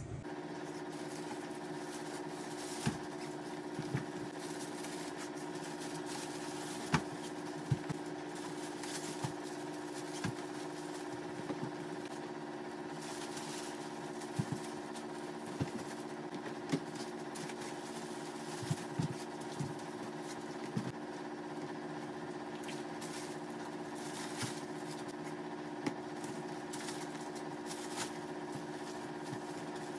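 Steady mechanical hum with irregular soft knocks and rustles as fabric tote bags are handled and packed into a plastic storage tub.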